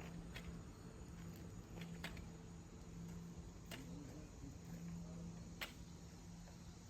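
Faint steady chirring of crickets, with a low steady hum underneath and a few sharp clicks.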